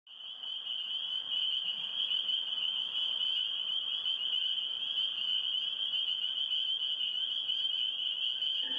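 Steady high-pitched insect trilling, fading in over the first second.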